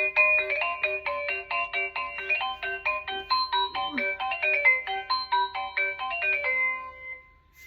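Electronic doorbell chime playing one of its built-in melodies: a quick tune of bright beeping notes over a low note that repeats about three times a second, fading out near the end.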